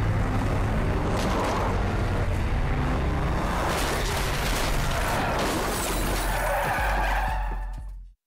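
Stunt car driven hard in reverse and crashing into another car, with glass shattering and debris crackling about four seconds in, over dramatic music with a low drone. The sound fades out just before the end.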